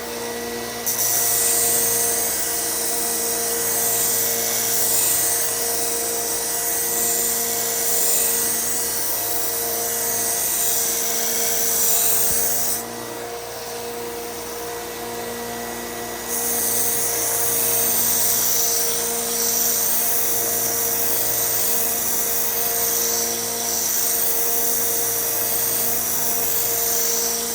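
A Henckels kitchen knife is being ground on a 1x30 belt sander with a 120-grit 3M Cubitron belt, thinning the steel behind the edge until a burr forms. The steel on the running belt makes a hissing grind from about a second in until about thirteen seconds, then again from about sixteen seconds nearly to the end. The belt sander and a dust-control vacuum run steadily underneath.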